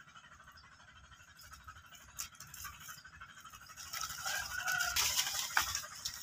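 Dry banana leaves rustling and crackling as a young monkey scrambles through them. The rustling grows louder about four seconds in, with one sharp snap near the end.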